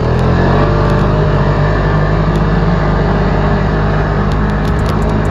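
Ski-Doo Grand Touring snowmobile's Rotax engine running steadily at cruising speed on a groomed trail, with a steady rushing noise over it.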